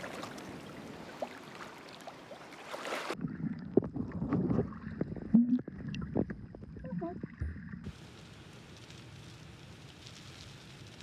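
Sea water and wind hiss at the surface. About three seconds in it cuts to a muffled underwater stretch of bubbling and small clicks, as a snorkeller's camera goes under. A quieter steady hiss follows near the end.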